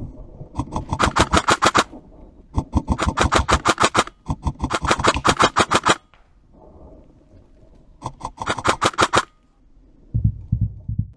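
Airsoft guns firing rapid full-auto bursts, four bursts of fast, evenly spaced cracks, with a few dull low thumps near the end.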